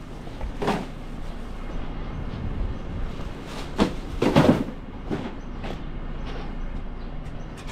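Rear-loading refuse truck running, a steady low mechanical hum with several clunks and clatters on top, the loudest about four and a half seconds in.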